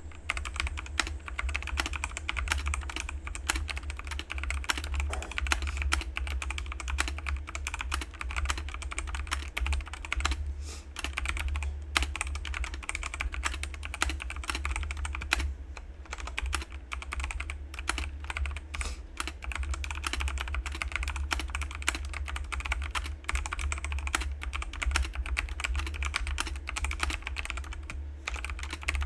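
Continuous rapid typing on a Kreo Hive 75% wired mechanical keyboard with red linear switches, a dense stream of irregular keystroke clacks over a steady low hum.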